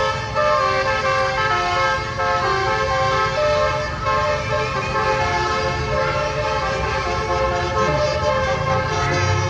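Bus's telolet basuri horn playing a melody: a quick run of changing horn notes, several sounding together.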